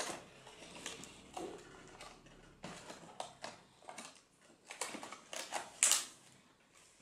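Irregular rustling and clicking of a toy's packaging being handled and pried open, with a louder snap about six seconds in.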